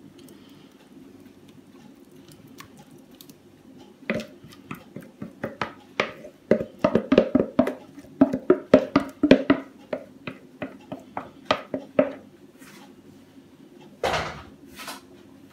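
Wooden spoon scraping and knocking against a plastic mixing bowl, a quick irregular run of taps starting about four seconds in and stopping a few seconds before the end, as a thick egg filling is scraped out. One short, louder scrape follows near the end.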